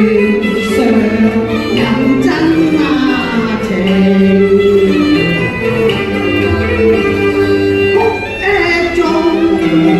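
Cantonese opera music: a voice singing a gliding melodic line over live accompaniment of bowed and plucked Chinese string instruments.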